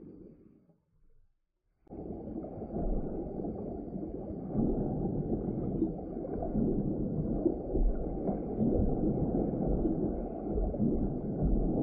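Muffled underwater noise picked up through a camera's waterproof housing: a dull, grainy rumble with occasional low knocks. It starts suddenly about two seconds in, after near silence.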